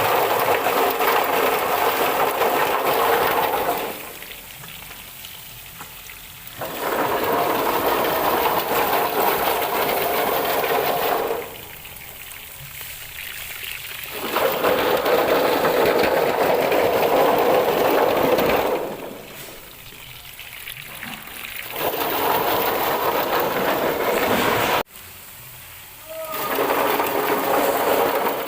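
Ginger washing machine running with water gushing through it, a loud rushing noise that comes in stretches of about four to five seconds with quieter gaps between, one gap starting abruptly near the end.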